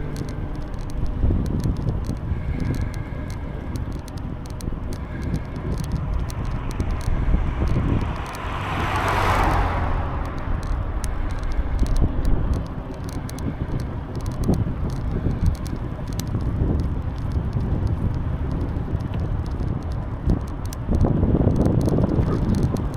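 Riding a bicycle: a steady low rumble of wind on the microphone and tyre noise, with scattered light clicks and rattles. About nine seconds in, a whoosh swells and fades.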